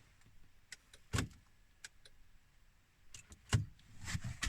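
Scattered clicks and knocks inside a 2005 Audi A6 C6 during an attempt to start it, with one louder thump about a second in and a cluster of knocks near the end. There is no cranking or engine sound: the car stays dead, the sign of its steering lock and gateway module fault.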